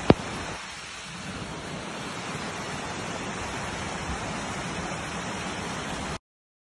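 Muddy flash-flood runoff from the hills rushing steadily down a rocky gully. A single sharp click sounds just after the start, and the sound cuts off abruptly near the end.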